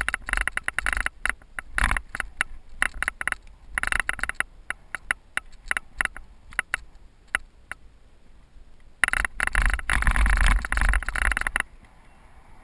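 A cyclocross bike rattling and clattering as it rolls down a rough dirt trail, with rushing noise that comes and goes. There is a quieter stretch in the middle, and it gets loud again about nine seconds in.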